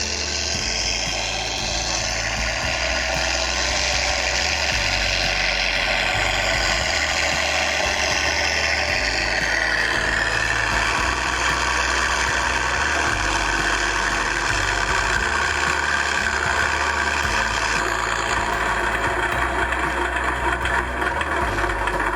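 Radio-controlled scale P-51 Mustang model running steadily, its onboard sound-effects system playing a piston warbird engine sound. The pitch shifts about halfway through.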